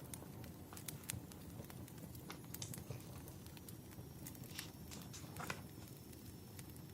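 Wood fire burning: irregular sharp pops and crackles over a low steady rumble.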